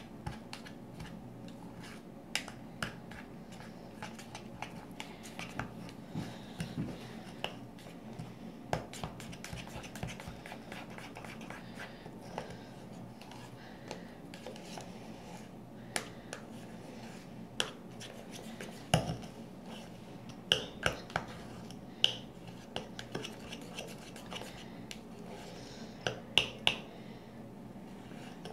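Slime of glue and shaving cream being stirred with a utensil in a container: irregular scraping and clinking, with a few sharper clinks in the second half.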